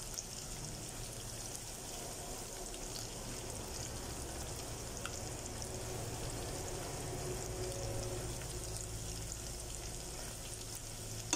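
Diced onions frying in oil in a nonstick saucepan: a soft, steady sizzle, stirred now and then with a spoon. They are being sautéed until translucent.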